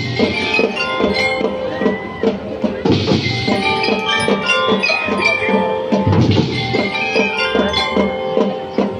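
Elementary school drum and lyre corps playing: bell lyres ring out a melody of short notes over a steady marching drum beat.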